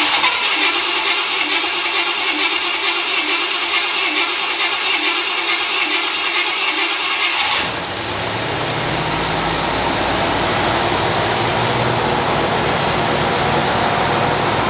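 1980 Cadillac Coupe de Ville's 368 V8 running just after starting, on the first run after an intake manifold gasket replacement, at a high fast idle. About halfway through the sound changes: the high hiss falls away and a lower, even pulsing note comes in. The engine is running smoothly and quietly.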